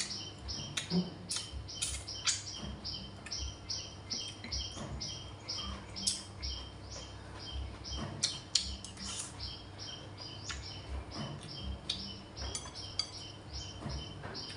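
A metal spoon and chopsticks clinking now and then against china bowls and plates during a meal, with a few sharper clinks near the middle. Behind them, a steady high chirping repeats about three times a second.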